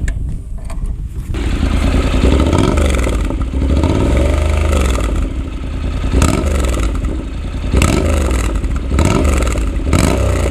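Honda CTX700N's parallel-twin engine through a Radiant Cycles Shorty GP slip-on exhaust while riding, its pitch rising and falling several times as the revs climb and drop. The sound is briefly quieter in the first second or so.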